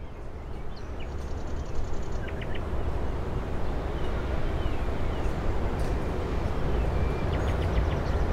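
Outdoor ambience: small birds chirping and trilling in short calls over a steady low rumble and hiss. It fades in over the first two seconds.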